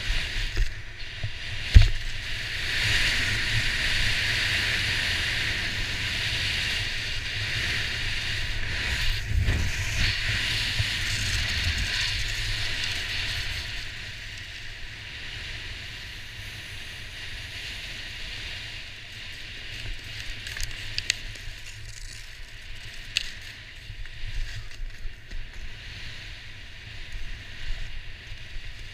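Skis hissing and scraping over packed snow at speed, loudest through the first half, then easing off after about thirteen seconds. Wind rumbles on the camera microphone throughout, and there is a sharp knock about two seconds in.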